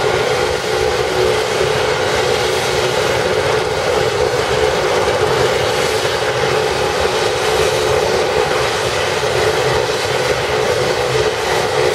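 AugustaWestland AW139 helicopter running on the ground with its rotors turning. Its twin Pratt & Whitney Canada PT6C turboshaft engines and the rotors make a steady, loud whine and whir, not yet at takeoff power.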